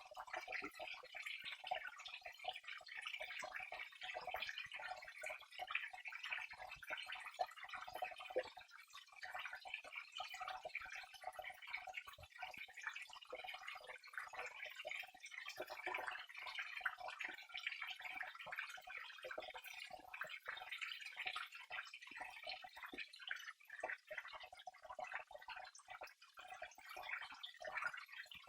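Flowing water trickling and splashing, with many small irregular drips.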